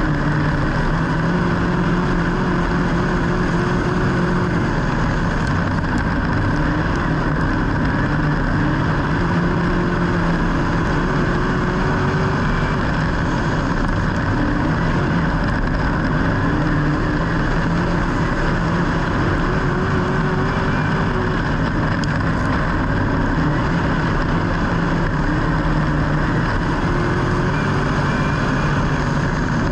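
Racing engine running hard over a loud, steady rush of noise, its note rising and then breaking off every few seconds.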